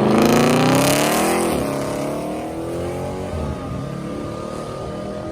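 A car engine accelerating hard through the gears: its pitch climbs, drops at an upshift about a second and a half in, climbs again and drops at another shift a little past three seconds, then fades as the car pulls away.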